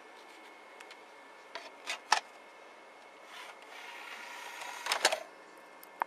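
SV2000 VHS/DVD recorder combo's mechanism making its strange noise: a few sharp clicks, then a rising whirr for about two seconds that ends in a burst of clicks and clunks, with one more click near the end, over a faint steady whine. The uploader says every SV2000 combo makes this same noise.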